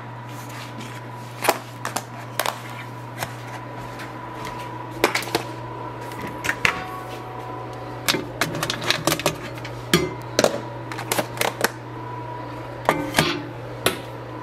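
Plastic meal-prep container and lid handled, clicking and knocking as the container is set on a microwave's glass turntable and a plastic microwave cover is placed over it. There are scattered clicks and clatters, busiest in the second half, over a steady low hum.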